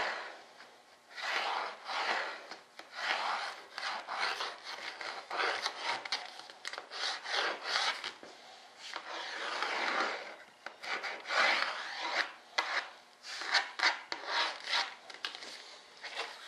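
A thin wooden strip being sanded along its edge: repeated rasping strokes, roughly one a second, with short pauses between them.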